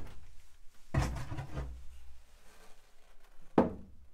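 A lightweight foam-core cabinet door swung open and closed on homemade hinges. It knocks against its frame about a second in and again, more sharply, near the end, with soft rubbing and creaking between the knocks.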